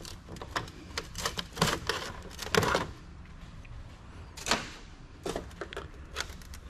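Irregular clicks, clacks and knocks of plastic and metal computer parts being pried apart and handled while a desktop PC's motherboard is freed from its mounting plate.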